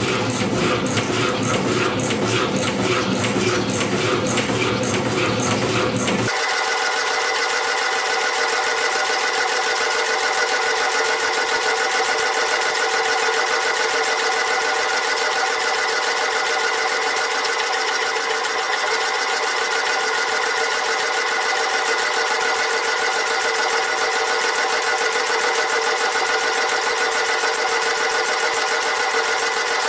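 Metal shaper running, its ram reciprocating as it planes steel vise jaws at 1 mm depth of cut, with a rhythmic mechanical clatter. About six seconds in, the sound jumps abruptly to a faster, higher-pitched steady run as the footage is sped up about four times.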